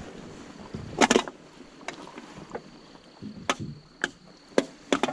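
A handful of short, sharp knocks and clicks against the boat as a trotline with hooks and a lead sinker is pulled in hand over hand, a blue catfish hanging on the line; first a small cluster, then several single knocks near the end.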